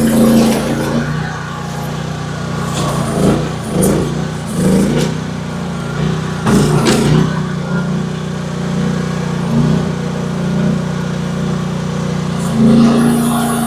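AGT H12 mini excavator's engine running steadily, rising in pitch and loudness again and again as the hydraulics take load. Several sharp knocks and cracks of wood and metal come through, the loudest about halfway through and again near the end.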